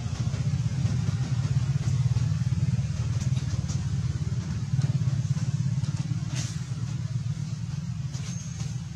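A steady low rumble, with a few faint clicks, one a little stronger about six and a half seconds in.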